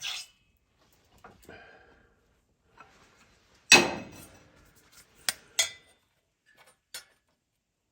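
Steel plate being handled and set down against metal: a few light knocks and clinks, a sharp clank with a short ring about halfway through, then three sharp clicks near the end.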